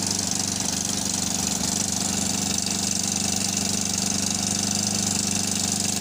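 150cc loader rickshaw's single-cylinder engine idling steadily. It is running after a wiring repair for its starting fault.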